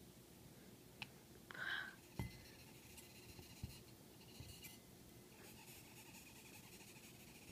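Faint squeaking and scratching of a velvet ant stridulating inside a drinking glass, with a short squeak about one and a half seconds in and a light knock just after it. The squeak is the wasp's warning sound when disturbed.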